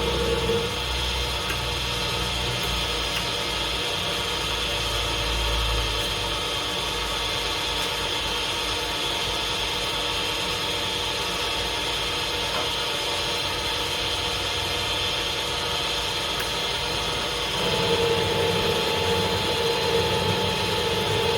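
Lathe running steadily: an even motor hum and hiss. A steady mid-pitched tone joins in briefly at the start and again for the last few seconds.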